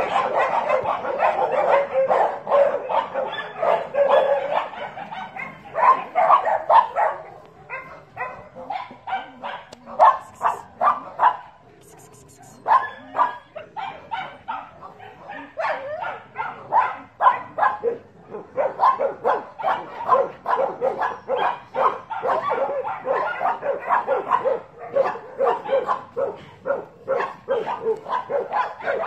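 A dog barking and yipping rapidly, over and over. It eases off for a few seconds about a third of the way through, then picks up again.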